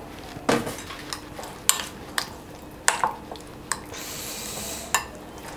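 A spoon knocking and clinking against a ceramic bowl as paneer cubes are stirred into a thick yogurt and spice marinade: about six separate knocks, with a brief scraping about four seconds in.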